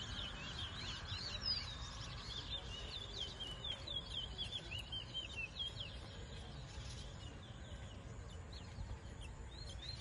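Towa-towa finches singing: a steady run of short, quick, high whistled notes, one after another, over a low steady background noise.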